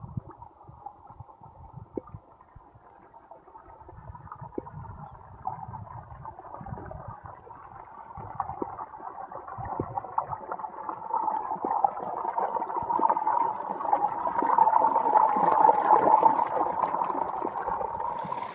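Water gushing from an irrigation pipe outlet and rushing along a shallow earthen channel, growing louder as it comes closer, loudest in the last third, with a few faint knocks along the way.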